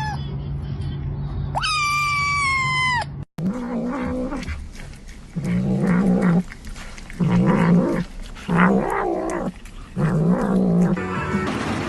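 A kitten's high meow, falling in pitch, then a cat's low growling yowls, five of them about a second long each, made while it grabs at a piece of hanging meat: a cat growling over food.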